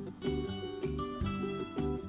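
Light instrumental background music with a steady beat of plucked notes.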